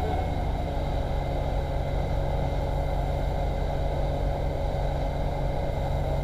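Motorboat engine running steadily under way, with the rushing churn of its wake.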